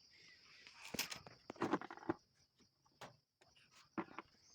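A handful of short clicks and knocks as the parts of a disassembled electric drill are handled and opened up, with a faint steady high-pitched tone underneath.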